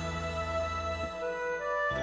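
Relaxing Japanese-style instrumental background music of slow, held notes. The low notes drop out about halfway, and new notes come in near the end.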